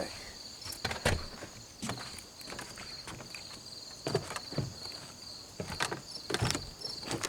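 Steady, high, pulsing cricket chirring, with a handful of short knocks and steps scattered through it.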